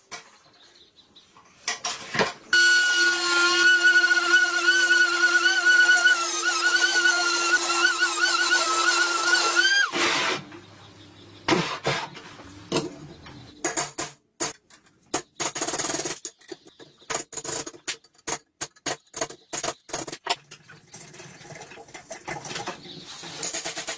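An electric drill runs for about seven seconds, its whine wavering as the bit cuts into metal. It stops suddenly, followed by a run of irregular metallic clicks and knocks from parts being handled.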